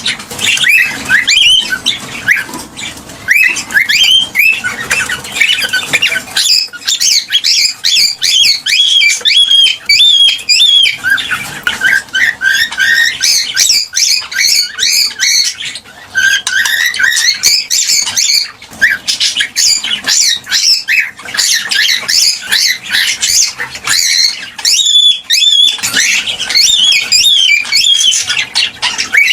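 Cockatiels chirping and calling in a fast, busy stream of short high-pitched chirps and rising whistles, with only brief pauses.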